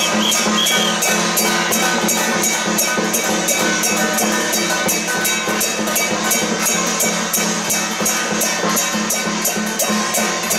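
Taiwanese temple percussion: drums and cymbals beating a fast, steady rhythm of about four strokes a second, the accompaniment that drives spirit mediums' five-treasures (操五寶) ritual.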